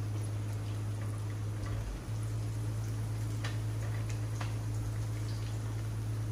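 Festivals (fried dumplings) frying in a shallow stainless steel pan of hot oil: faint crackling with scattered small ticks and clicks as they are turned with a fork, over a steady low hum.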